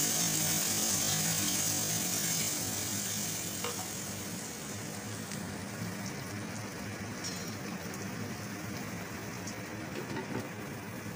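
Chopped onion and tomato masala sizzling in hot oil in a pan while being stirred with a spatula. The sizzle is loudest at first and dies down after a few seconds to a quieter steady frying, with a few faint clicks of the spatula.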